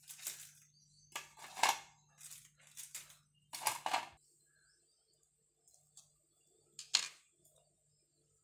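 Thin plastic biscuit tray crinkling and biscuits clicking down onto a plate, in several short bursts, with one sharp click about seven seconds in.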